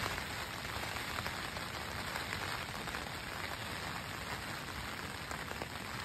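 Steady cold rain falling on a tent, heard from inside, a constant hiss with scattered individual drop hits.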